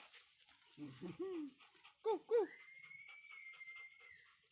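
Doberman whining and yelping: a low whine about a second in, two quick louder yelps just after two seconds, then a long, thin high-pitched whine held for nearly two seconds.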